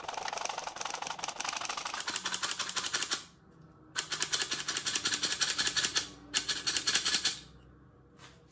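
Flour being sifted into a glass bowl: the sifter rattles with a fast, even ticking in two spells of about three seconds, with a short pause between them.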